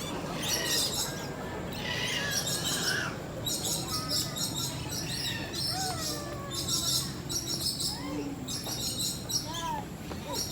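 Birds chirping in repeated high-pitched stretches of chatter, with people's voices murmuring in the background.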